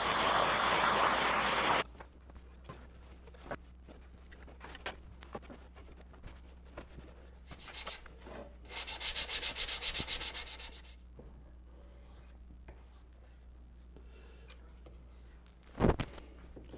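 Wooden paddle parts being handled on a workbench: scattered light knocks and clicks, a couple of seconds of rapid rubbing strokes about nine seconds in, and one loud knock near the end. A loud steady rushing noise opens the sound and cuts off abruptly about two seconds in.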